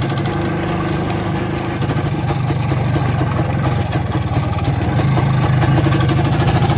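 IZh Planeta 3 motorcycle's single-cylinder two-stroke engine running as the bike rides along, getting louder about five seconds in.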